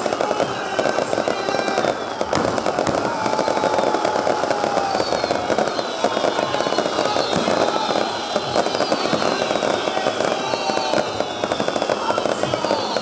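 Fireworks crackling in dense, continuous rapid volleys, with repeated shrill whistles that glide down in pitch.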